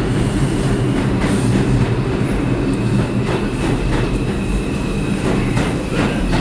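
Subway train noise in an underground station: a loud, steady rumble and hum with irregular clacks of wheels over the rails, and a thin, steady high squeal that comes in about halfway through.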